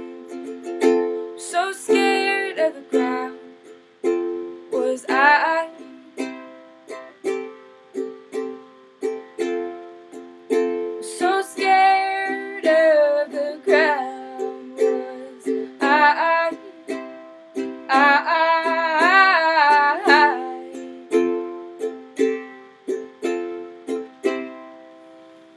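Acoustic folk song outro: plucked strings picked in a steady pattern, with several phrases of long, wavering melody notes over them. The music thins out and fades on the last notes.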